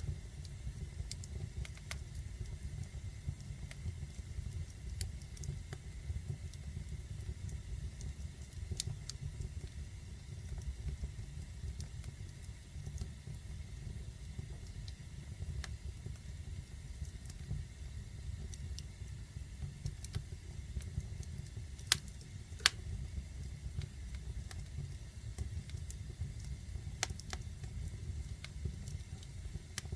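Fire burning in a fireplace: scattered crackles over a steady low rumble, with two sharp pops close together a little past the middle.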